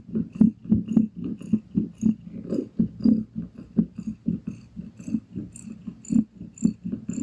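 Pregnant Balinese cat in early labour purring, a low pulsing rumble that beats about four times a second.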